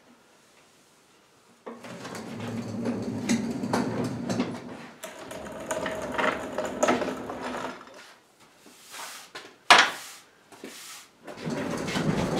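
Heavy wooden table on a wheeled workshop cart rolled across a concrete floor, the caster wheels rumbling for several seconds. A few light clicks follow, then a single sharp knock about ten seconds in, and the rumbling starts again near the end.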